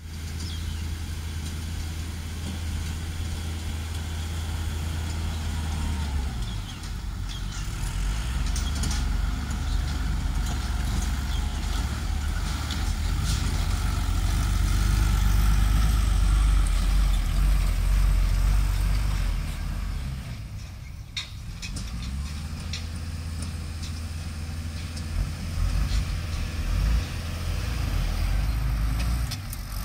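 A six-wheel dump truck loaded with soil, its diesel engine running low and steady as it drives slowly over loose dirt. It grows loudest as it passes close about halfway through, then dips briefly about two-thirds in.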